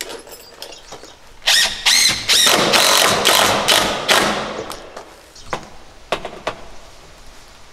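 Cordless driver driving a screw through a door's hinge-side jamb, running in several short bursts with its pitch rising and falling. A few light knocks follow near the end.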